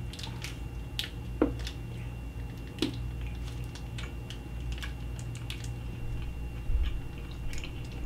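Chewing a bite of milk chocolate bar, with scattered small clicks and crackles over a low steady hum.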